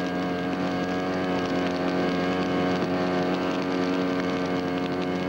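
Small engine-driven fire pump unit on a tanker running steadily at constant speed, giving an even, unchanging engine hum.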